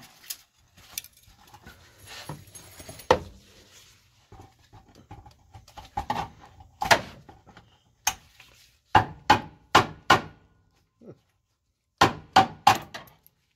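Hammer tapping the end of a screwdriver to drive out brittle push-through plastic retainer clips: sharp taps, a few single ones at first, then a quick run of four about half way through and another quick group of four near the end.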